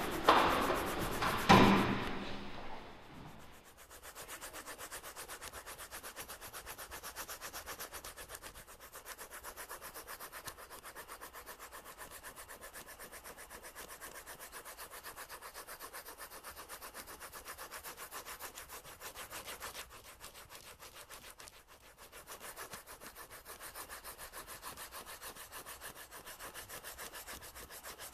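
Steady rubbing and scraping in fast, even strokes, like something dragged back and forth over paper or wood, after two loud knocks in the first two seconds.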